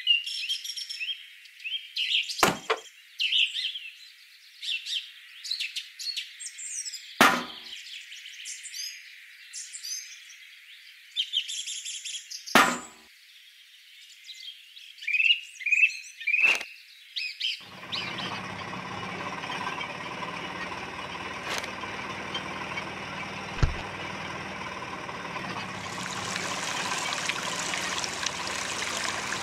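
Birds chirping, broken by a few sharp clicks, until a small electric motor starts about 18 seconds in and runs steadily, driving a toy fruit-press machine. Near the end, liquid starts trickling from the machine's spouts into tin buckets.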